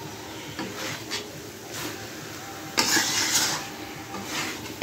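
Chicken pieces being stirred and scraped around a steel kadai while being sautéed in oil with onion and ginger-garlic paste. A few uneven scraping strokes, the loudest about three seconds in.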